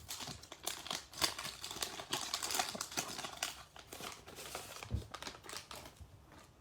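The wrapper of a trading card pack crinkling and tearing as it is opened by hand: a dense run of irregular crackles that thins out near the end.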